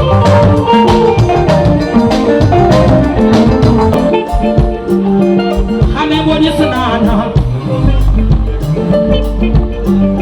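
Upbeat Guinean dance music with drums and a steady beat; a voice sings over it from about six seconds in.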